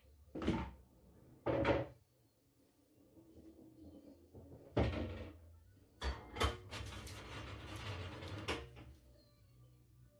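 Pool balls on a bar-style pool table: sharp knocks about half a second and a second and a half in as the balls strike and one drops into a pocket, more knocks a little later, then a rolling rumble of a ball for a couple of seconds that stops abruptly near the end.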